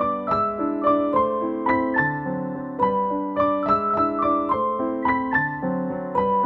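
Background music: a keyboard melody over chords, with notes struck in a steady, even flow.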